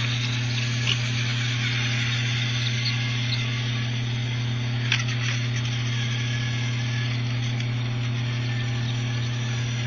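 Steady whirr and buzz of small battery-powered TOMY toy train motors and gearing running on plastic track, with a couple of faint clicks.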